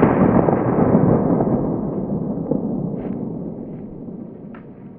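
Slowed-down report of a 9mm Glock 19 pistol shot: a deep boom, already under way, dying away steadily over several seconds, with a few faint ticks in the second half.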